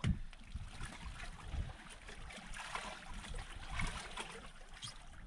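Sea water lapping and splashing against the side of a small boat as feet kick in the water, with a few low thumps.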